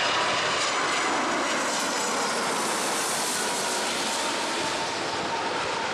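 Jet engines of an Airbus A330-200 airliner passing by as it comes in to land: a loud, steady rush of engine noise with a thin whine over it that sinks slightly in pitch.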